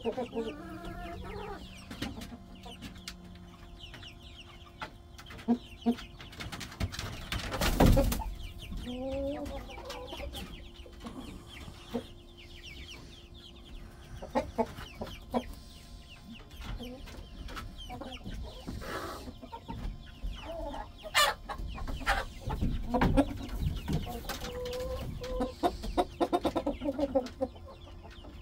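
A flock of chickens clucking and giving short soft calls while settling on the roost. There is one brief loud noise about eight seconds in.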